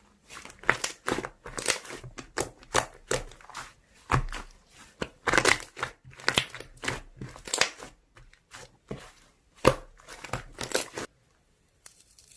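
Slime being pressed and squished by hand, giving a dense run of sharp crackles and clicks that stops about eleven seconds in.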